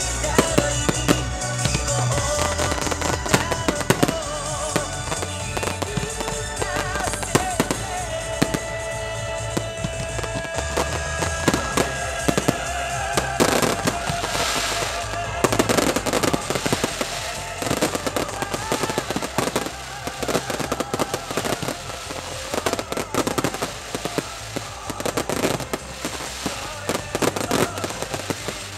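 Starmine fireworks barrage fired at close range: a rapid, unbroken string of sharp bangs and crackles, each burst heard almost at once with its bloom. Show music with a bass line plays underneath.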